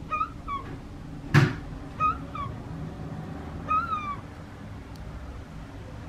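Herring gulls giving short mewing calls, two quick ones near the start and again about two seconds in, then a longer, slightly falling call near four seconds. A single sharp knock about a second and a half in is the loudest sound.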